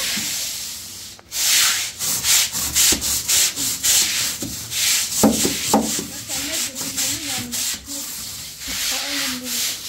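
Stiff-bristled push broom scrubbing a wet concrete floor in quick back-and-forth strokes, about two or three a second, with a brief pause about a second in.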